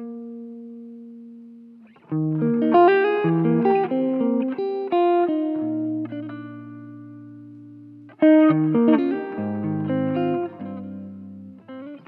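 Clean semi-hollow electric guitar playing a slow ballad intro. A held chord rings out and fades, then two phrases of picked notes and chords with low bass notes come in, about two seconds in and again about eight seconds in, each left to ring and die away.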